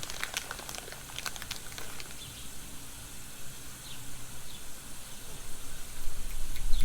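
A quick run of light clicks and rustles in the first two seconds, a few faint short high chirps, then a low rumble that swells near the end.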